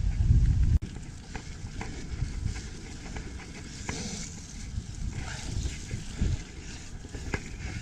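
Mountain bike ridden over a dirt singletrack: tyre and trail noise with scattered clicks and rattles from the bike over bumps. Wind buffets the microphone heavily for about the first second, then cuts off suddenly.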